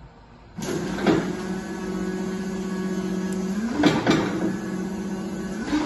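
Baumann EVS 50/16/40 electric four-way sideloader running: a steady electric whine starts about half a second in. Sharp clicks come about a second in, twice near four seconds and again near the end, and the whine shifts briefly just before the clicks near four seconds.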